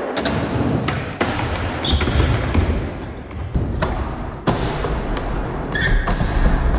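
Skateboard wheels rolling on a smooth concrete floor with a steady low rumble, broken by several sharp clacks of the board as the skater pops up onto a ledge and rides along it. Near the end comes a clattering knock as he falls and the board hits the ledge.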